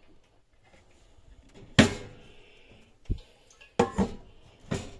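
Hinged wooden galley worktop covers being handled in a small boat cabin: a loud, sharp knock about two seconds in, then a dull thump, then a quick double knock and one more knock near the end.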